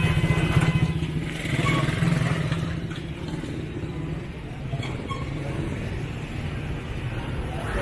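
Street traffic of small engines: motor rickshaws and motorcycles running. A close engine is loudest for about the first two seconds, then eases off.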